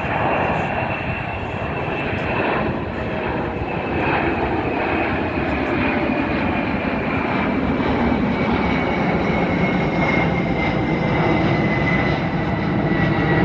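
FedEx Airbus A300 cargo jet taking off at full thrust: a steady jet engine roar with a high whine slowly falling in pitch.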